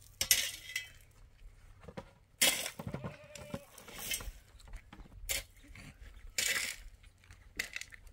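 Dry split firewood knocking and clattering as pieces are pulled off a woodpile, in several separate short bursts. A short bleat sounds about three seconds in.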